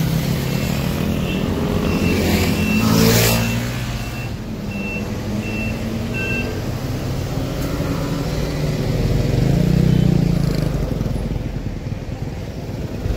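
Cargo truck engine running close by, with a high reversing beep repeating about every half second for the first six seconds or so. A passing vehicle makes a loud rush about three seconds in.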